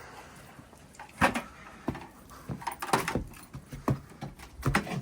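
A handful of separate sharp knocks and clinks, about six in all, the loudest about a second in and another strong one near the end.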